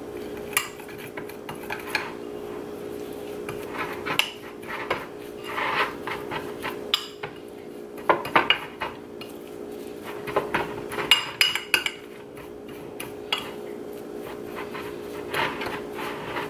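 A metal spoon stirring a damp ground-spice mix in a small glass bowl, with irregular clinks and scrapes of the spoon against the glass. A steady low hum runs underneath.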